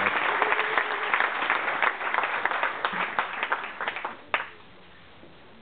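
Audience applauding, the clapping thinning out and stopping about four and a half seconds in.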